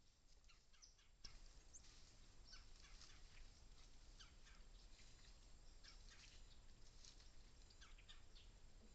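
Faint bird calls: many short chirps, several a second, from more than one bird.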